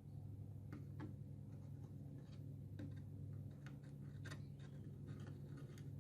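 Scattered light clicks and scratchy taps, as of small objects or tools being handled, over a steady low hum.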